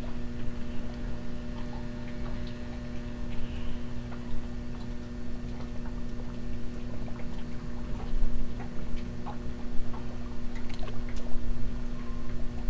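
Water lapping and splashing lightly around a dock, with scattered faint clicks and ticks over a steady low electrical hum.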